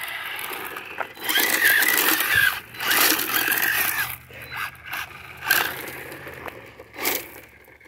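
Remote-control model car's motor and gears whining in several short bursts as it is throttled on and off, the whine wavering in pitch over a scrabbling noise.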